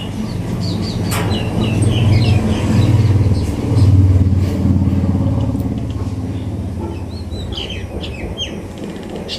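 A passing motor vehicle's engine running, growing louder to a peak about four seconds in and then fading away, with birds chirping over it near the start and again near the end.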